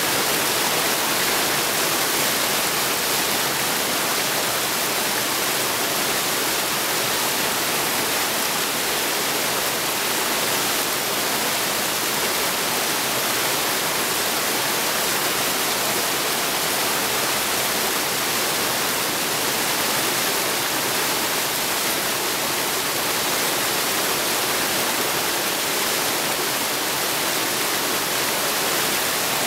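Small mountain creek cascading over boulders: a steady, even rush of white water, brighter and hissier than it is deep.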